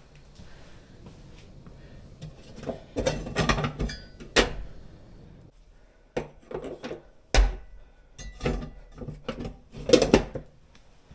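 Irregular knocks, clicks and clattering of things being handled, with a few louder sharp thumps about a third of the way in, past the middle and near the end.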